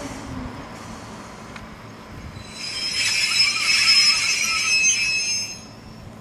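Ichibata Electric Railway 3000-series electric train moving away, its running noise fading with a falling tone. Then its wheels squeal on a curve for about three seconds, a high ringing squeal that cuts off suddenly.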